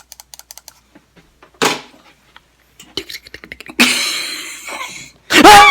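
A person making silly mouth and voice noises: a run of quick clicks, a short burst, more clicks, and a hiss. Near the end comes a loud, high, wavering vocal cry.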